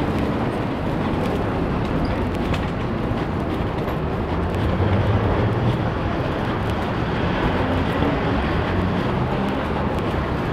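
Steady city street traffic noise: road vehicles' engines and tyres running past without a break.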